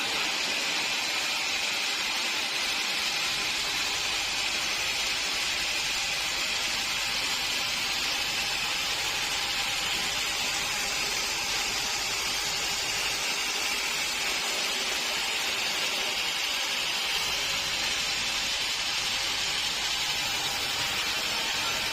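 Sawmill machinery running, a steady, even hiss with no breaks or separate knocks.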